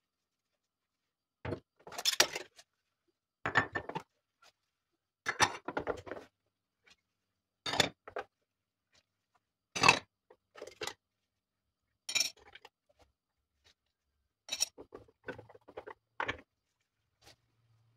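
Plates and spoons clinking and clattering as they are washed by hand with a sponge and set down, in short bursts every second or two.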